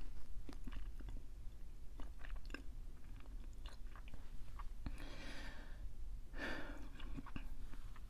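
A person chewing food close to the microphone, with scattered soft wet mouth clicks. Two longer breaths come about five and six and a half seconds in.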